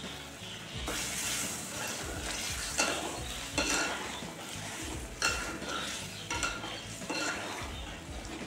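Spice masala sizzling in hot oil in a frying pan, the sizzle swelling about a second in, while a metal spatula stirs it and scrapes against the pan several times.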